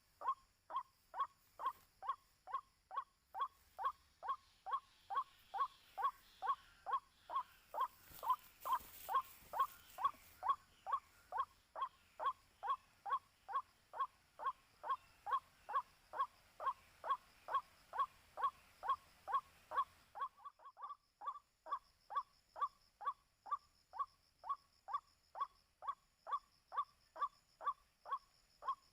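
White-breasted waterhen's 'kwak' call, repeated steadily at about two notes a second.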